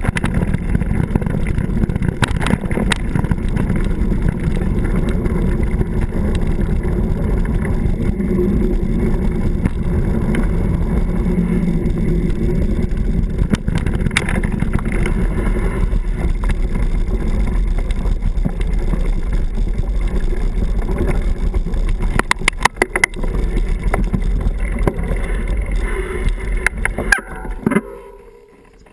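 Mountain bike riding fast down a gravel dirt trail: a steady rumble of tyres and wind on the bike-mounted camera, with frequent clicks and rattles of the bike over stones. Near the end it dies away as the bike slows to a stop.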